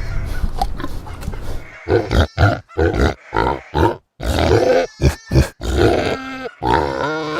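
Pigs grunting: a low rumbling stretch, then a run of short grunts from about two seconds in, then longer grunts with a higher, squealing note near the end.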